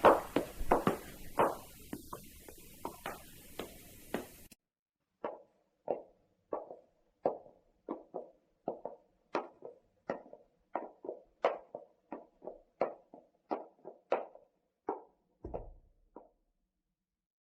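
Footsteps in leather dress shoes (pantofel): a steady walk of sharp heel-and-sole clicks, about two to three steps a second. A low hiss underneath cuts out about four seconds in, and the steps stop shortly before the end.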